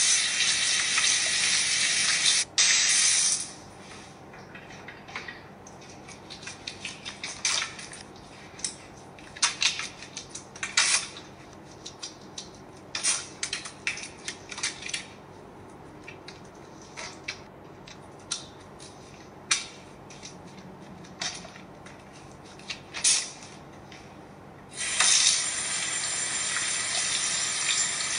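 Kitchen tap running in a stream into the sink, shut off after about three seconds. Then wet hands rubbing soap with scattered small splashes and squelches, and the tap runs again about 25 seconds in for rinsing.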